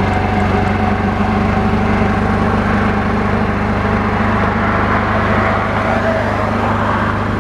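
A car running on the road: a steady engine hum mixed with road and wind noise.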